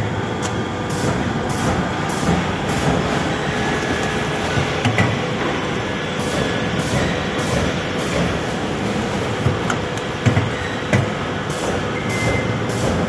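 Automatic partition assembly machine running: a steady mechanical clatter as it feeds corrugated cardboard partition strips, with short hisses repeating every half second or so in runs and a few sharp clacks.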